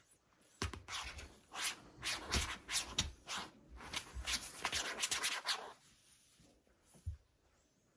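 Close rubbing and scratching noises in a quick run of strokes lasting about five seconds, then a single soft knock near the end.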